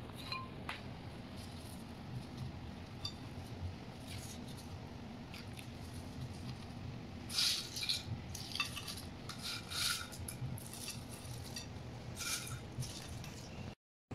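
Light clinks and taps of a utensil against a glass baking dish as chicken pieces are laid on rice, mostly in a cluster from about halfway through, over a steady low hum.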